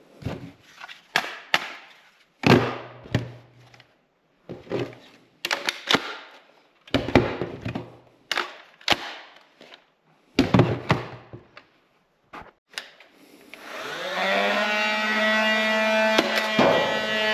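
Toy foam-dart blasters being primed and fired: a string of sharp plastic clacks and snaps at irregular spacing. Near the end a rising hum levels off into a steady whine.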